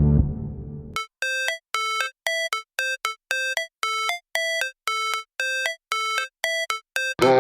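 Background music. A fuller track fades out, then a run of short, ringtone-like synthesizer notes repeats about two to three times a second. A fuller track comes back in near the end.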